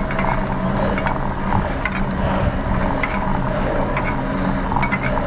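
Bicycle riding over a rough off-road forest trail: the bike rattles with many scattered clicks over a steady low hum.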